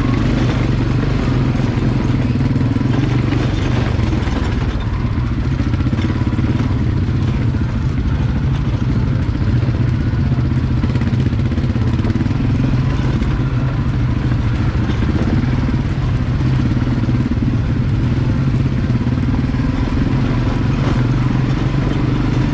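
ATV engine running steadily under way on a dirt trail, a low continuous drone with no big revs or stops.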